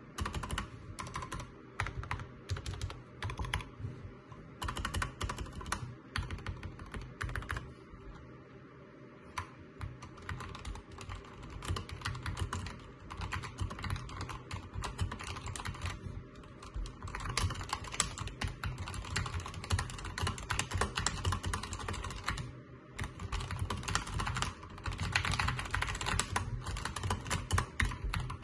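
Typing on a lubed SteelSeries Apex Pro TKL mechanical keyboard with OmniPoint magnetic switches: a steady stream of keystroke clacks. It eases off for a moment about a third of the way in, then picks up into faster, denser typing in the second half.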